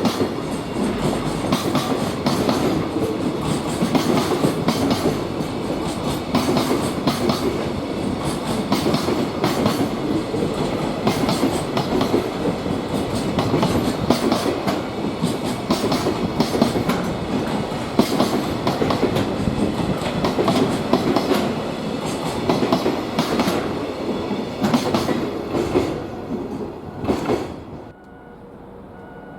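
Freight train rolling past at speed, its wagon wheels clicking steadily over the rail joints. The noise falls away sharply near the end as the train clears.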